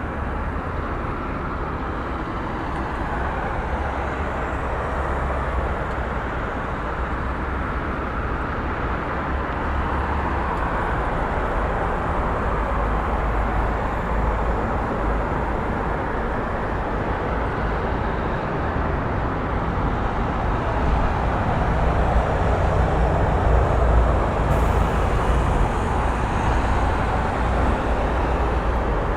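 Steady vehicle rumble in a street recording, with a strong low end and no distinct events, growing somewhat louder about twenty seconds in.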